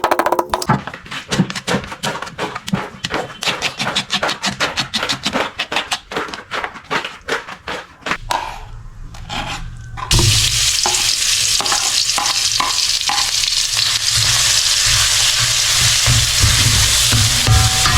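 Rapid, dense clicking and tapping for several seconds, then about ten seconds in a loud, steady sizzle of food frying in a pan starts suddenly and carries on, with a few stirring knocks over it.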